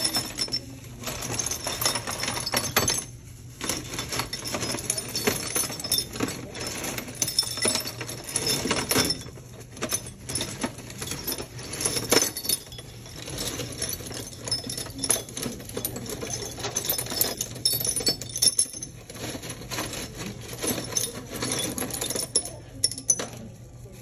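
Broken ceramic tile pieces clinking and rattling against each other as a gloved hand rakes and sorts through them in a tub: a dense, uneven run of small clatters with a few short pauses.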